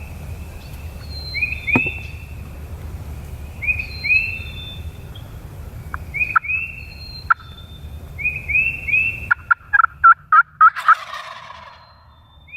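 Wild turkey gobbling: a quick run of about seven loud notes near the end. Throughout, short high calls come in groups of two or three every couple of seconds.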